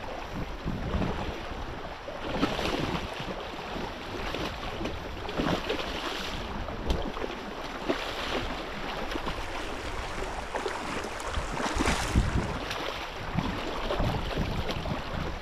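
Choppy water in a tidal rip slapping and rushing against a hull, in swells every few seconds, with wind buffeting the microphone.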